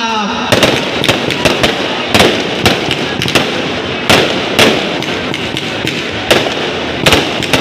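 An aerial fireworks display going off in quick succession: sharp bangs, about two a second at irregular spacing, as shells fire from their launch tubes and burst overhead, with a continuous crackle in between.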